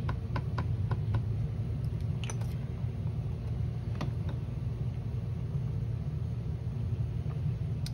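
Steady low rumble, with a quick run of light taps in the first second as an ink pad is dabbed onto a clear stamp. A few single clicks follow, one about four seconds in as the Stamparatus stamping tool's hinged clear plate swings over the card.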